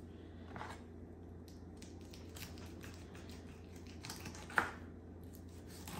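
Kitchen knife cutting through a raw chicken leg at the thigh–drumstick joint on a wooden cutting board: faint scrapes and soft clicks, with one sharper click about four and a half seconds in.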